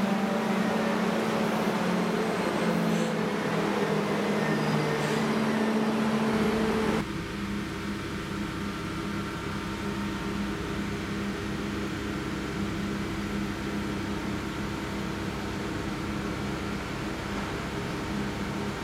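High-speed electric train at the platform, giving a steady electrical hum made of several held tones. The sound drops abruptly and changes about seven seconds in, then goes on as a quieter steady hum.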